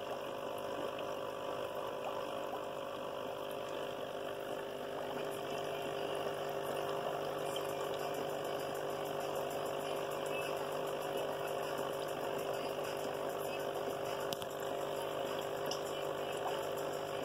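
Aquarium sponge filter and its air pump running: a steady hum with continuous water bubbling.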